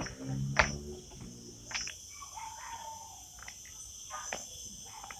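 Crickets chirring steadily in a high continuous trill, with a few sharp clicks and taps over it, the loudest about half a second in.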